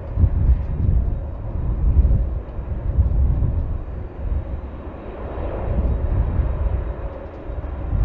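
Gusting wind buffeting the microphone as a low, uneven rumble, over the steady run of a taxiing twin-engine jet airliner's engines.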